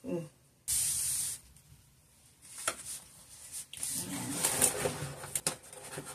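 Hands rubbing a peel-and-stick paper wallpaper panel flat against a wall: a short hissing swipe about a second in, then softer rustling and handling of the paper sheet with a few light clicks.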